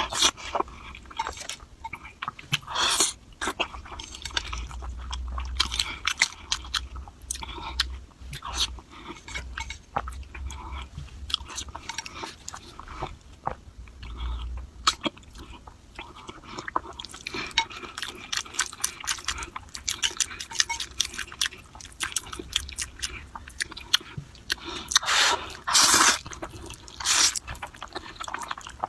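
Close-up eating sounds: chewing and slurping of noodles with wet mouth clicks and smacks, some crunchy bites.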